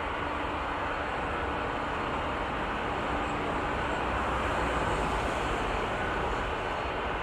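Airbus A350-900's Rolls-Royce Trent XWB turbofan engines running, a steady jet rush that swells a little about five seconds in.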